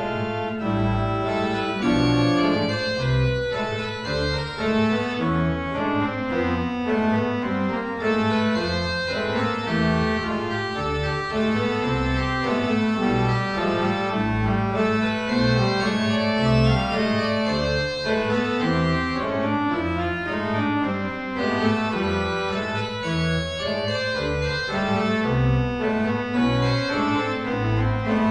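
Hey pipe organ playing a continuous passage of dense, sustained chords over a moving bass line in the pedals.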